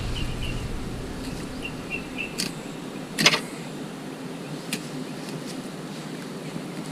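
Fillet knife working along a mutton snapper's backbone, with a few sharp clicks and taps, the loudest about three seconds in.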